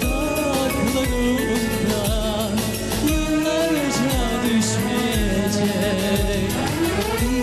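A singer performing a Turkish-language song with instrumental accompaniment: a wavering sung melody over a steady beat of about one thump a second.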